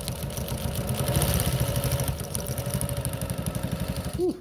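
Industrial walking-foot sewing machine stitching through folded heavy denim: a fast, steady run of needle strokes that stops shortly before the end.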